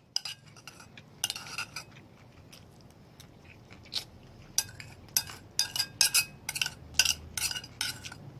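Cutlery clinking and scraping against a plate as food is scooped up during a meal: a few sharp clicks about a second in, then a run of clinks roughly every half second in the second half.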